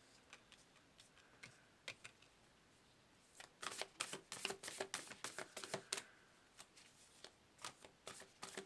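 Oracle cards being shuffled by hand: a couple of soft clicks, then from about three and a half seconds in a quick run of card slaps and flicks that thins out near the end.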